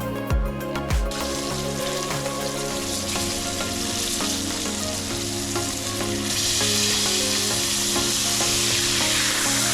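Fish frying in a pan, sizzling steadily; the sizzle grows louder about six seconds in.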